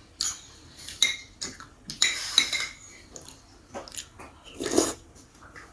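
Metal spoon clinking and scraping against a ceramic plate as soup is scooped up: a series of sharp separate clinks, busiest about two seconds in.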